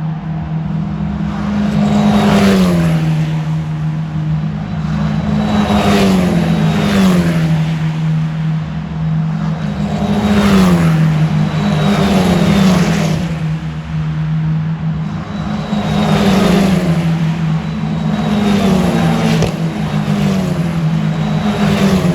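Formula-car race engines passing at speed one after another, each engine note high and then dropping sharply in pitch as the car goes by. About eight passes, some close together, over a steady low hum.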